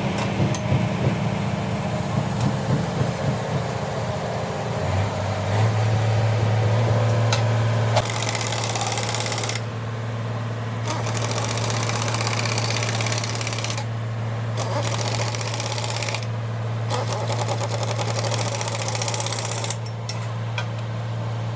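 Rebuilt road roller diesel engine running with a steady clatter; it drops to a lower, steady speed about five seconds in.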